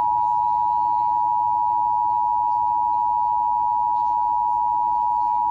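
Emergency Alert System attention signal: the two-tone alert, 853 Hz and 960 Hz sounded together, held as one loud steady tone. It marks the start of an emergency alert, here a required monthly test whose spoken message follows.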